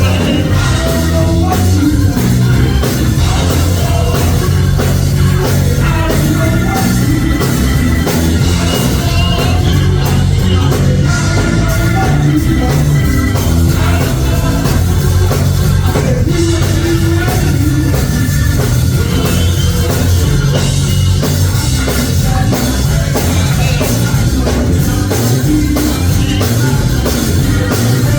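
Live church praise band playing loudly and steadily, with drum kit and a heavy bass line.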